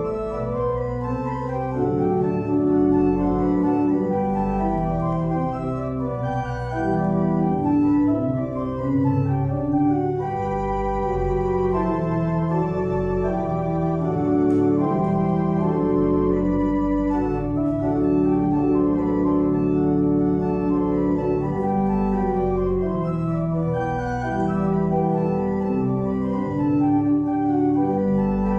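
Church organ playing the postlude that closes the service: sustained chords over held bass notes, changing every second or so.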